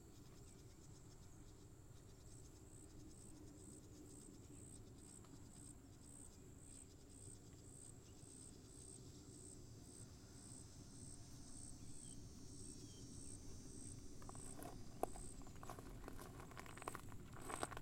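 Faint insect chirping: a high, even chirp repeating a little over twice a second, with a second high buzz joining midway. Footsteps start near the end.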